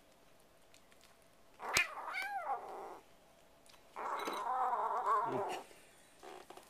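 A kitten yowling at an oven-mitted hand reaching for its food bowl, a food-guarding warning. There are two calls: a short one about two seconds in, opening with a sharp tap, and a longer wavering one about four seconds in that drops low at its end.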